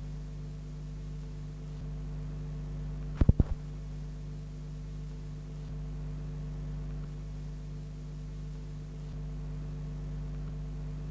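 Steady electrical hum with several tones layered over a faint hiss, as on an old soundtrack between passages. About three seconds in, a quick cluster of four or so sharp clicks.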